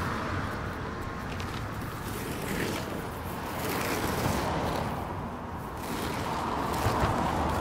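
Street ambience: a steady rumble of traffic with wind noise, no single event standing out.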